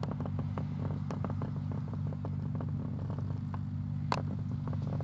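An engine running steadily at a distance, a constant low hum, with light clicking over it.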